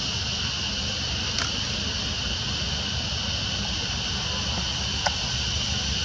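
Steady outdoor background noise: a constant high, even hiss with a low rumble beneath it, and two brief faint clicks, one about a second and a half in and one about five seconds in.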